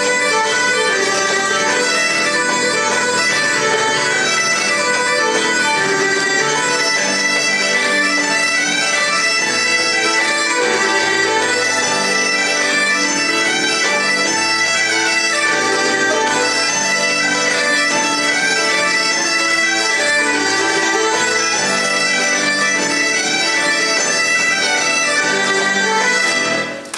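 Bagpipes playing a traditional tune over a steady drone, with fiddle and keyboard backing. The tune stops near the end.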